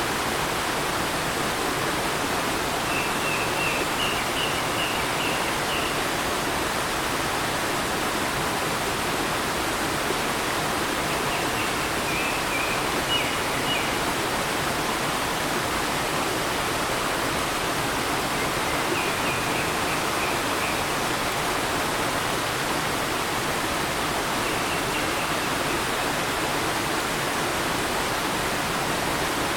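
Small forest stream flowing steadily over rocks. A songbird sings short phrases of quick high notes, about four times, several seconds apart.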